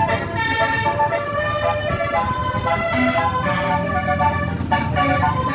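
Bus telolet horn, a Basuri multi-tone air horn, playing a melody of notes that change pitch several times a second, over the bus engine running.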